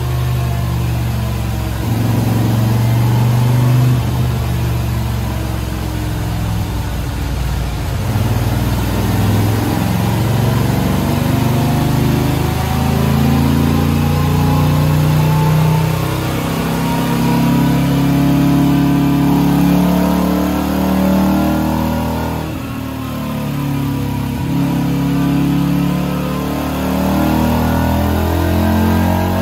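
Moto Guzzi V7 850's air-cooled transverse V-twin running under load on a chassis dynamometer, its rear tyre spinning on the roller. The engine revs climb several times and drop back as it is run through the rev range for fuel-map tuning.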